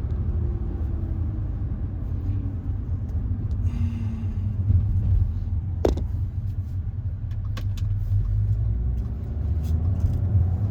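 Audi A4 2.0T turbocharged four-cylinder driving along, a steady low engine and road rumble with a faint engine note sinking slowly over the first few seconds, and one sharp click about six seconds in. The engine is running without misfire on its new Eldor coils and one-step-colder spark plugs.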